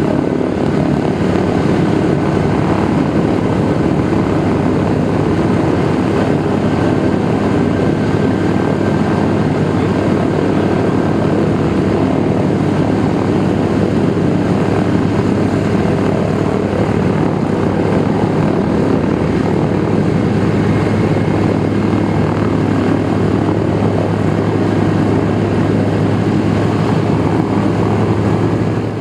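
Douglas DC-3's twin Pratt & Whitney R-1830-92 fourteen-cylinder radial engines running steadily with propellers turning, a deep even drone that holds the same pitch and level throughout.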